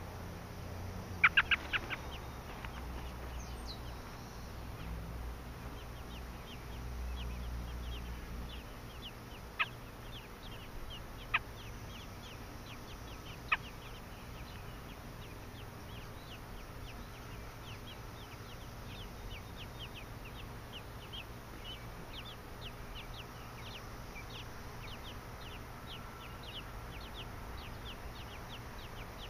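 American robin nestlings begging: a long run of thin, short peeps, about two to three a second, as a parent feeds them at the nest. A quick cluster of louder sharp chirps comes about a second in, and single sharp chirps sound around ten, eleven and fourteen seconds in.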